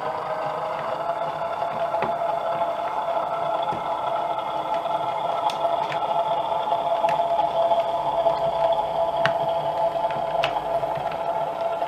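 DCC sound decoder in an O gauge Class 08 diesel shunter model playing the engine running steadily as the locomotive moves slowly, heard through the model's small loudspeaker. A few light clicks come through from about halfway on.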